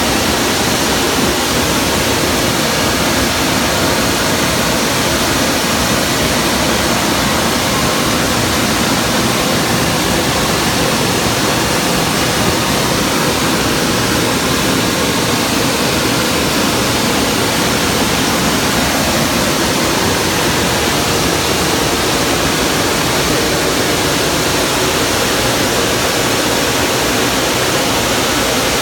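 Jim Coleman WaterWizard 1.0 in-bay automatic car wash running, a loud, steady rush that holds even throughout.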